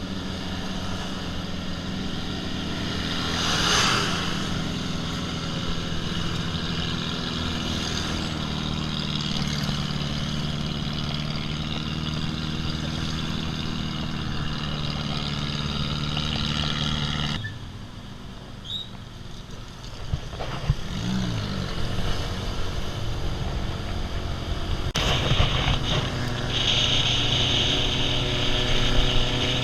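Off-road vehicle engine running steadily. It drops away abruptly partway through, the pitch then rises and falls as it is revved, and it runs louder near the end.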